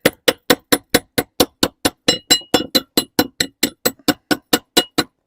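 Chipping hammer striking a fresh stick weld to knock off the slag. The taps are rapid and even, about four a second, with a light metallic ring on some strikes.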